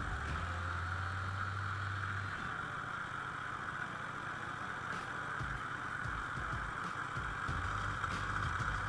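Vintage motorcycle engine running while riding, with a steady rushing noise over it. The low engine note fades after about two seconds and comes back near the end.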